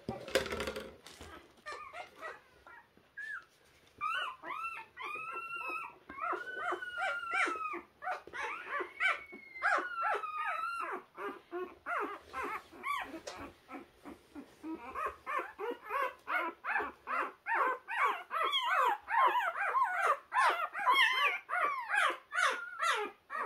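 Newborn puppies whimpering and squealing as they crawl: high, wavering cries that rise and fall. Drawn-out cries come in the first half, then short cries in quick succession from about midway. A brief rustling thump opens the stretch.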